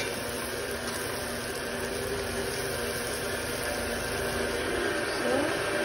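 Ground meat and sliced hot dogs frying in a wok: a steady sizzle with a low, even hum underneath.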